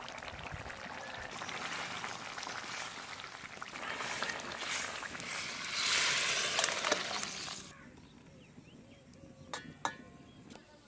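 Hot vegetable curry hissing and bubbling in a pan, then poured out into a steel bowl: the pour is loudest about six seconds in and stops abruptly just before eight seconds. A few sharp metallic clinks of a spatula against the steel bowl follow near the end.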